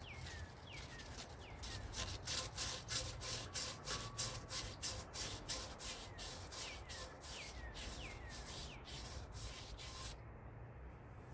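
Hand sanding in the U-joint cup bores of a driveshaft yoke: quick back-and-forth abrasive strokes, about three a second, starting about two seconds in and stopping near the end. Birds give short falling chirps in the background.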